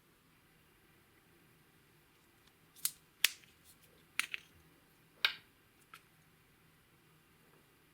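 Slime being worked by hand, giving a handful of sharp clicking pops, about six over three seconds, starting near three seconds in.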